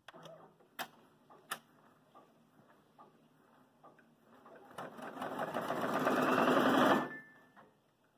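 Brother Persona PRS100 single-needle embroidery machine starting a design: two sharp clicks, then faint ticking, then rapid stitching that grows louder for about two seconds and stops abruptly. It stops because the upper thread broke, the out-of-the-box tension being too tight.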